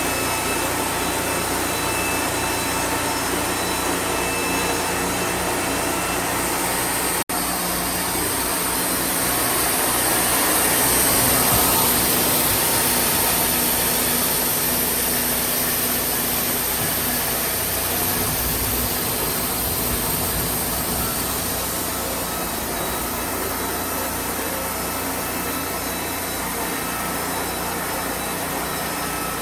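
Wood-Mizer portable band sawmill running steadily, its engine and blade working through a pine log. The sound cuts out for an instant about seven seconds in and swells a little louder around ten to twelve seconds.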